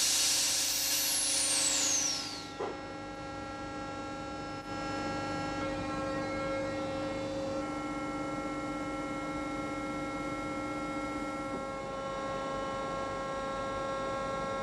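A steady hum of several held tones. It opens with a high whoosh that sweeps downward and fades over the first two seconds.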